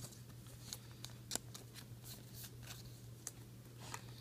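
Trading cards being handled and flipped through by hand: a scattered series of light card-on-card slides and flicks.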